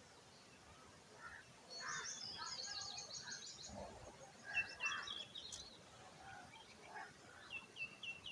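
Small birds chirping: a fast run of high chirps about two seconds in, then short repeated downward-sliding notes a little later and again near the end.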